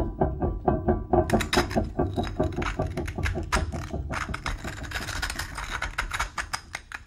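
Dry crackling and crunching as hands break and crumble a dark, porous, crusty lump, dense and close from about a second in and heaviest in the second half. At the start a quick rhythmic pulsing with a pitched tone, like music, fades out under it.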